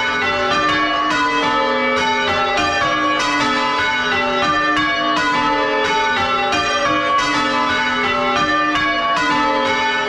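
A ring of six church bells, tenor about 9 cwt, being rung full circle in change ringing, heard close up inside the belfry. A steady, even succession of strikes, each bell's tone ringing on over the next.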